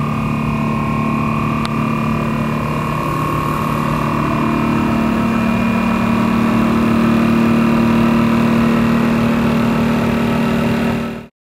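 Whip Mix VPMmini vacuum mixer running a timed mixing cycle: a steady motor hum from its vacuum pump and paddle drive, growing slightly louder, then cutting off suddenly near the end.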